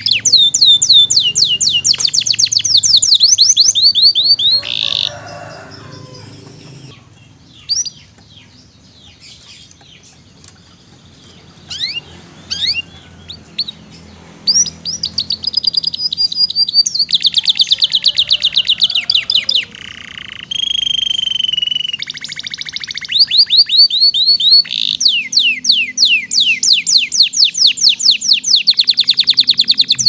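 Domestic canary singing: long runs of fast repeated falling notes in rapid trills, broken by a quieter stretch of scattered single notes in the middle and a held whistled note about two-thirds of the way through.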